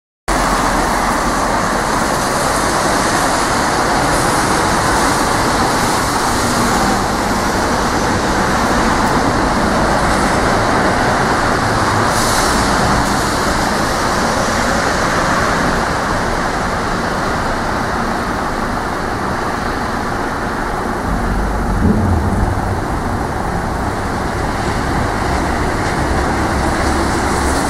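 City street traffic on rain-wet roads: a steady hiss of tyres on wet asphalt. A short, louder low knock comes about three-quarters of the way through.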